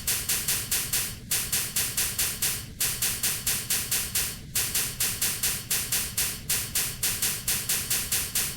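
Rapid, evenly spaced hammer blows on metal during forging, about six a second, in runs of one to two seconds with brief breaks between them.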